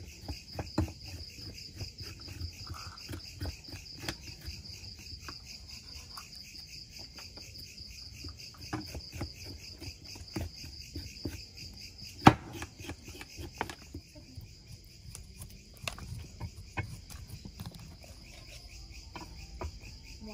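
Night insects trilling steadily, with scattered knocks of knives on wooden chopping boards as chicken and ginger are cut. One much louder chop comes about twelve seconds in.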